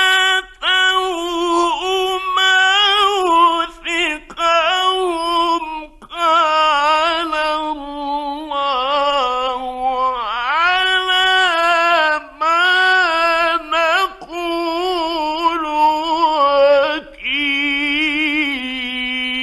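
A male Quran reciter chanting in a melodic, ornamented style: long drawn-out phrases with gliding, embellished notes and short breaks between them, ending on a long held note.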